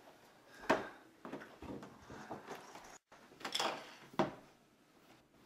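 Cardboard Sorry! board-game box being opened and its contents handled on a wooden table: about four sharp knocks and clatters with quieter scraping of cardboard between them.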